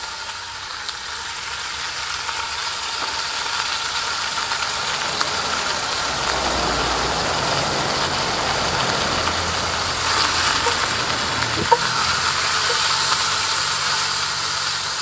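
Beef strips sizzling in hot vegetable oil in a cast-iron camp oven: the sizzle starts suddenly as the meat hits the pan and holds steady, with one sharp tick a little before the end.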